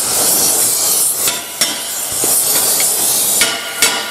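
Gas torch flame hissing steadily while a hammer strikes a punch several times, tapping a heated steel ring gear down onto a tractor flywheel.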